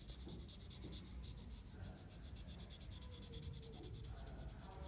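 Felt-tip marker scratching across paper in a fast run of short back-and-forth strokes, drawing a tight squiggle.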